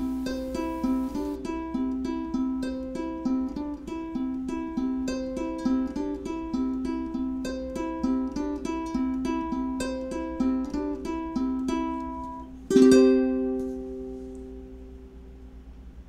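Outro music: a plucked acoustic string instrument playing a picked melody of quick single notes, then a final chord near the end that rings out and slowly fades.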